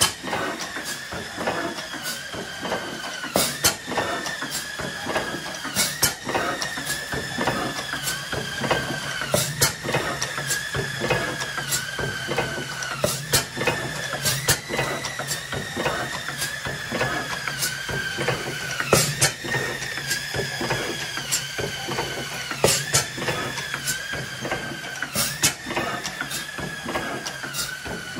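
Blackstone hit-and-miss oil engine running, with a sharp firing stroke every couple of seconds at uneven spacing and a steady mechanical clatter between them. A whine from the engine rises at each firing and sinks as it coasts until the next.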